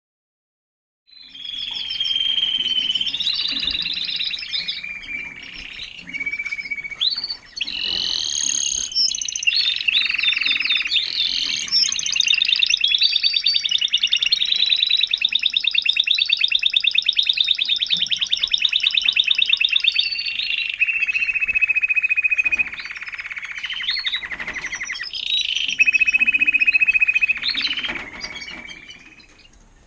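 Timbrado español canary singing a long song of rapid trills and rolls, with a long, very fast trill in the middle; it starts about a second in and fades near the end.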